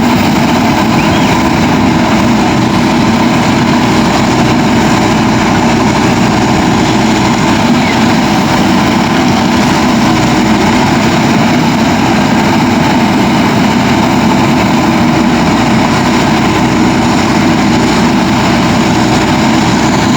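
JCB 3DX backhoe loader's diesel engine running steadily and loudly, with no breaks.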